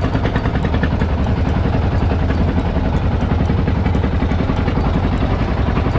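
Wooden motorboat's engine running steadily with a fast, even chugging, heard from on board the boat.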